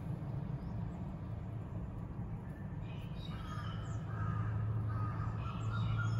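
A bird calling several times in the background over a steady low hum, the calls starting about halfway through.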